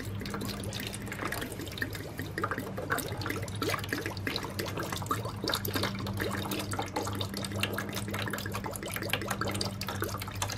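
Old coolant trickling and dripping from an upturned motorcycle coolant reservoir into a plastic jug. It drains slowly because no air can get into the reservoir to replace the liquid.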